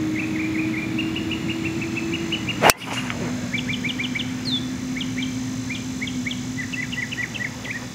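A golf driver striking a ball off the tee: one sharp crack about two and a half seconds in, the loudest sound. Birds chirp in quick, repeated short notes throughout, over a steady low hum.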